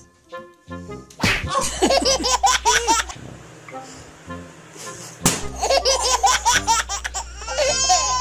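Young children laughing and squealing over background music, with two sudden sharp smacks, one about a second in and one about five seconds in.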